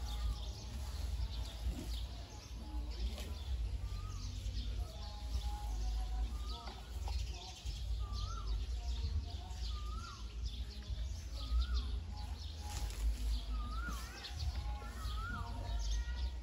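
A bird calling over and over outdoors, a short rising-then-falling note repeated about once a second, over a steady low rumble and light crackling rustle.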